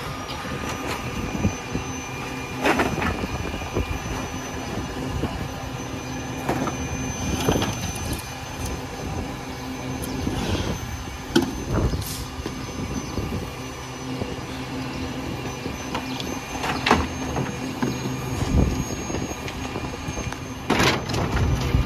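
Diesel rear-loader garbage truck idling steadily, while wood boards and plywood demolition debris are tossed into its rear hopper with several bangs and clatters at irregular intervals.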